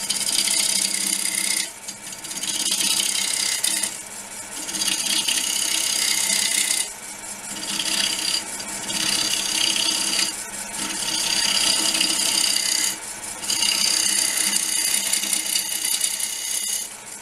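Wood lathe turning a raw, wet wood bowl blank while a cutter made from a drill bit shears off shavings: a steady hiss in cuts of one to three seconds, broken by short pauses as the tool eases off, over the running lathe.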